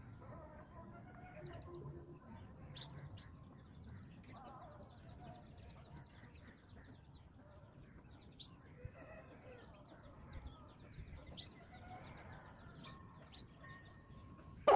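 Chickens clucking softly, with short, high chirps of sparrows here and there.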